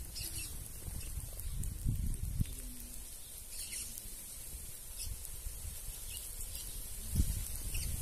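Scattered short chirps from a feeding flock of red-cowled cardinals and saffron finches, a few seconds apart, over a low rumble with a couple of dull thumps.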